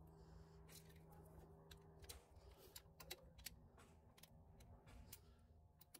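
Faint, scattered small metal clicks of pliers squeezing a horseshoe clip shut on the parking brake lever's pin of a drum brake shoe, over a faint steady hum.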